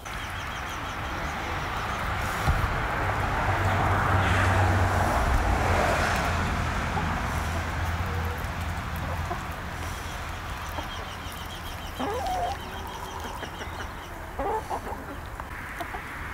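A flock of domestic hens clucking as they forage, with a few short calls standing out about twelve and fourteen seconds in. Under them runs a steady rushing noise that swells a few seconds in.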